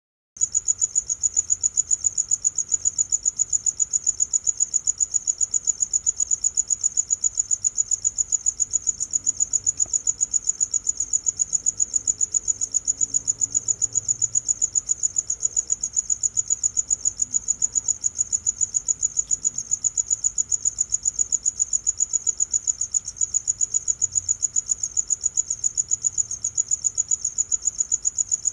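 A cricket chirping: one high, steady chirp repeated in a fast, even rhythm without a break.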